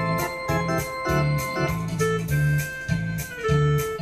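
Yamaha PSR-S670 digital arranger keyboard played with an organ voice: held chords and a moving melody over bass notes and a steady beat, about two pulses a second.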